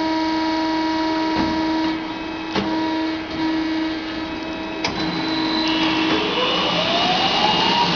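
Steelmaster H-400HA automatic bandsaw running its reload cycle: a steady machine hum with a few clunks as the stock is fed and clamped, then a whine rising in pitch over the last two seconds as the machine starts up for the next cut.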